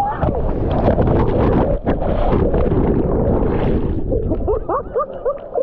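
Strong wind buffeting the microphone, a loud rumble with irregular knocks that eases about four seconds in.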